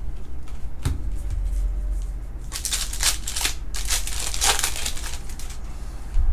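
Foil trading-card pack wrapper crinkling in a run of quick rustles for about three seconds in the middle, after a single sharp click about a second in.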